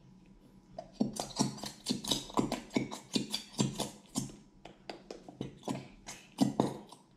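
Squeezed plastic glue bottle giving off a quick, irregular run of clicks and pops, about three or four a second from about a second in, as thick glow-in-the-dark glue and air push out of the nozzle.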